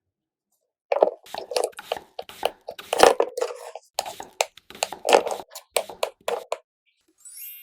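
A dense, uneven run of crunchy clicks and taps lasting about five seconds, then a short bright chime near the end.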